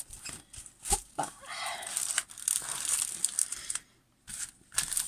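Plastic-covered diamond painting canvas crinkling and crackling as it is handled and rolled backwards to flatten it.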